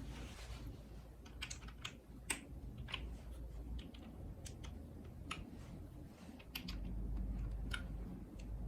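Typing on a KBDFans Maja mechanical keyboard with a top-mounted brass plate, lubed Boba U4T tactile switches and NicePBT PBT keycaps. Irregular keystrokes come at about two to three a second.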